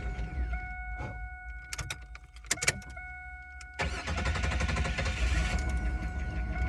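Pontiac Firebird V6 engine on a freshly replaced starter: the engine sound stops about half a second in, a few sharp clicks follow, and about four seconds in it starts again and keeps running steadily. A steady high tone sounds throughout.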